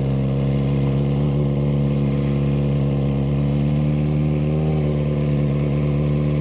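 Suzuki GSX-R 600 inline-four engine idling steadily at an even pitch.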